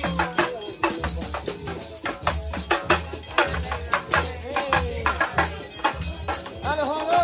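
Samba batucada played live: a hand drum beating steadily about twice a second under jingling tambourine and triangle, with voices singing along.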